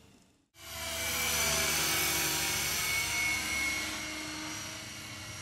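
Gaui Hurricane 425 electric RC helicopter in flight: a steady high whine from the brushless motor and drive, made of several pitched tones over the rotor noise. It starts abruptly about half a second in, after a moment of near silence, and eases slightly near the end.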